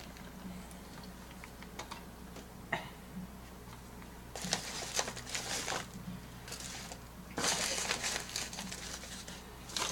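Packaging being handled: a few light clicks and taps, then two spells of crinkling rustle, about four and a half and seven and a half seconds in.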